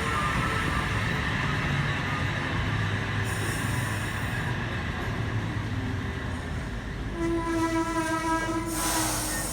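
H-set OSCAR electric intercity train running at the platform, a steady rumble, with a pitched squeal coming in about seven seconds in and a brief hiss near the end.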